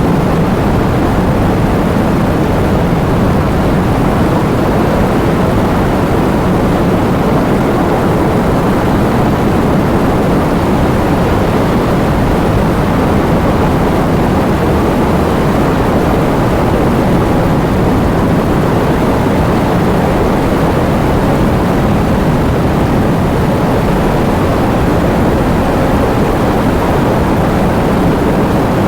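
Heavy rain falling in a steady, unbroken downpour, weighted toward the low end, with no single drops standing out.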